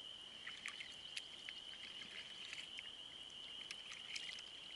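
Faint outdoor animal chorus: a steady high-pitched calling drone with scattered short chirps and ticks over it.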